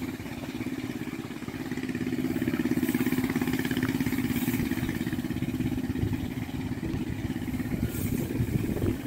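Small engine of a hand-held brush cutter running steadily.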